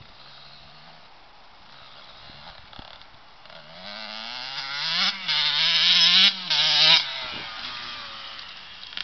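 KTM 85 dirt bike's two-stroke single-cylinder engine revving as the bike rides up close and passes, growing louder from about three and a half seconds in. The sound breaks off sharply twice, around five and six seconds in, then fades after about seven seconds.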